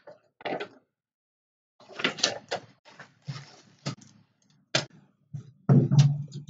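Paper instruction booklets rustling and hard plastic model-kit sprues being handled on a table: a string of light clicks and clatters of plastic, with a louder clatter near the end.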